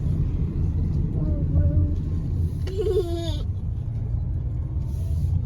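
Steady low rumble of a car driving, with brief pitched, gliding sounds about a second and a half and three seconds in.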